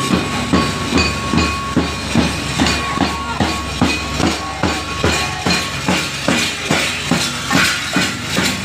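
Loud, even rhythmic beating, about two to three strokes a second, over a busy street background.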